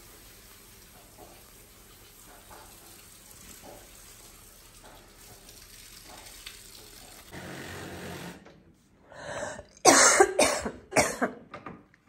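Several loud coughs close together about ten seconds in, after a stretch of faint background noise.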